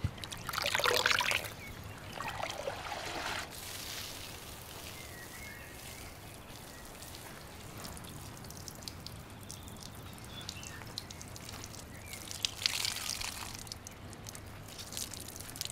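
Water splashing and running off as a soaked sheepskin is lifted out of a pot of water in the first few seconds. About 13 seconds in, water trickles and drips from the wet fleece as it is squeezed.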